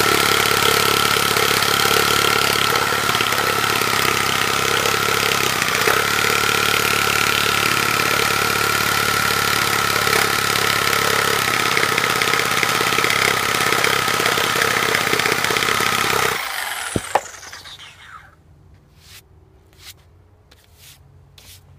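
Corded Sawzall reciprocating saw cutting through a timber post, starting at once and running at a steady speed with a constant whine. About sixteen seconds in it is released and winds down to a stop, followed by a few faint clicks.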